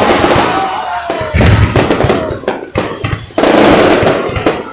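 Fireworks going off in quick succession: sharp bangs and crackling, with a deep boom about a second and a half in and a dense burst of crackle near the end.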